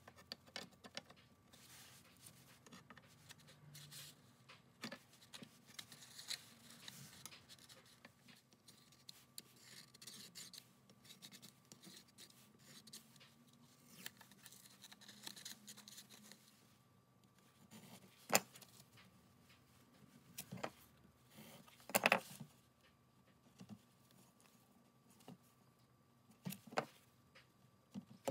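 Paper-plate template and masking tape being handled and marked with a pencil: faint rustling and scratching, broken by a few sharp clicks.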